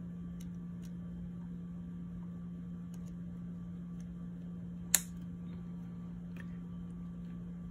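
Insulated female spade connectors being pushed onto the metal terminals of a 3D printer's power inlet switch: a few faint small clicks and one sharp click about five seconds in as a connector snaps home, over a steady low hum.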